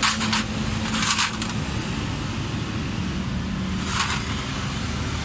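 Three short hissing bursts, each about half a second long: at the start, about a second in, and about four seconds in. They sit over a steady low rumble.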